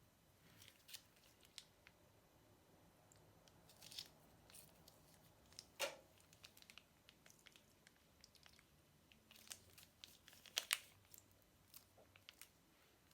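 Quiet, scattered crinkling and crackling as slime-making materials are handled, with sharper crackles about six seconds and eleven seconds in.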